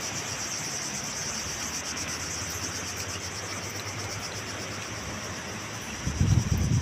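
Steady high-pitched drone of insects in the trees. A low rumble comes in near the end.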